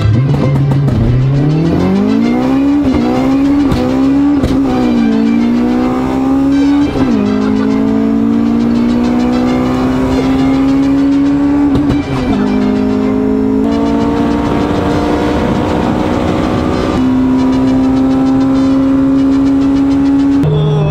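Honda Civic EG's B18C VTEC four-cylinder engine heard from inside the cabin under hard acceleration, its pitch climbing and then dropping back at each of several gearshifts.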